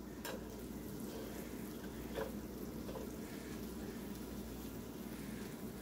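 Ground-beef burger patties sizzling steadily on an open George Foreman electric grill, with a few light clicks of a utensil as they are moved.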